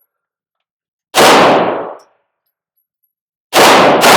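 Glock 17 9 mm pistol firing slow aimed shots, each a sharp crack with a ringing echo tail: one shot about a second in, then two more about half a second apart near the end.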